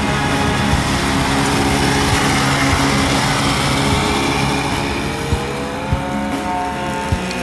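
Snowmobile engines running through deep powder snow, a steady engine drone over a hiss of noise, with an engine note climbing in pitch about five seconds in.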